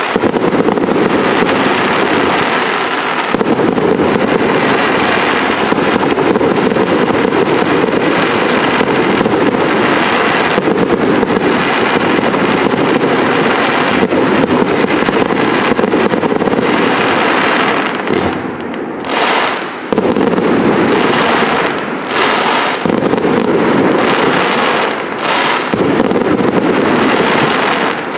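Fireworks display: a dense, unbroken barrage of firework bursts in rapid succession, with a brief lull about two-thirds of the way through.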